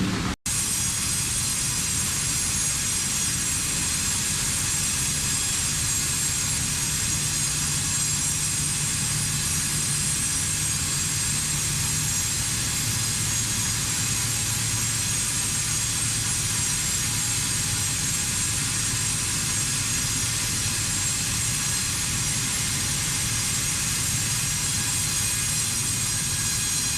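Steady machinery drone with a constant hiss, unchanging throughout, broken only by a brief dropout about half a second in.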